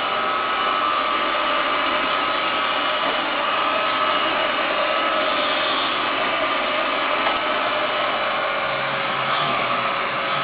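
Roomba robot vacuum running, a steady whirring hum of its suction motor and brushes with a constant whine.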